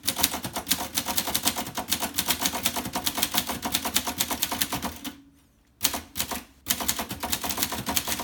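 1955 Groma Kolibri portable typewriter being typed on at speed: a rapid run of key and typebar strikes, stopping for a moment about five seconds in, then going on again.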